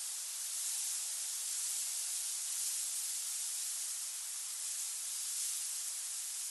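Wind-driven sand grains hissing steadily, with the low wind rumble filtered out; the hiss is high and swells gently now and then as gusts carry more sand.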